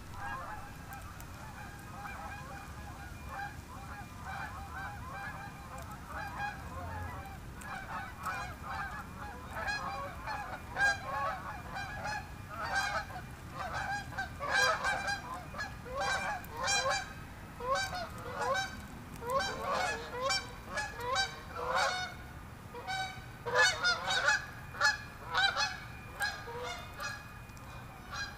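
Many birds giving short, repeated honking calls, sparse at first and growing louder and more frequent from about eight seconds in.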